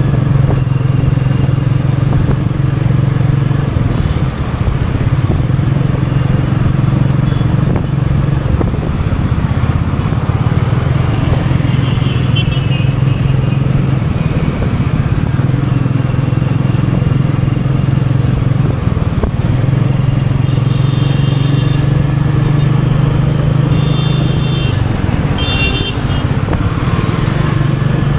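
Royal Enfield Meteor 350's single-cylinder engine running through city riding, its low, steady note falling away and coming back several times as the throttle is eased and opened. A few short high beeps sound in the second half.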